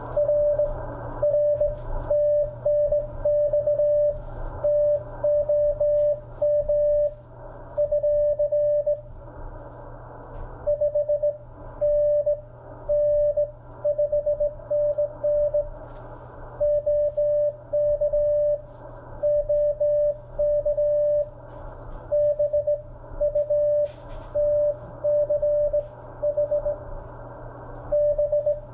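Morse code sidetone from an Icom IC-7300 transceiver: a single tone of about 600 Hz keyed by hand on a straight key into dots and dashes, with short pauses between words, over a steady hiss and low hum. It is the sending side of a CW contact: a reply giving a 5NN signal report and a serial number, ending with BK to hand back.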